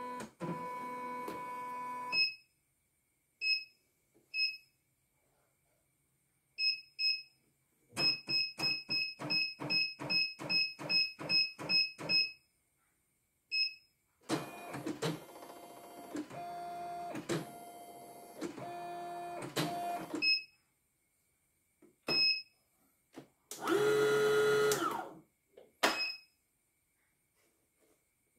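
E900 embroidery machine on a test run after its rotary hook was replaced. It runs briefly and stops, then gives short sharp ticks and a run of slow stitches at about three a second. It then runs steadily for about six seconds, and a louder one-second run comes near the end.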